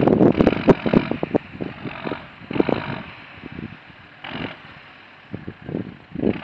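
Old tractor engine running with an uneven, popping exhaust beat. The pops are loudest and thickest in the first second or two, then fall away to a few scattered single bursts.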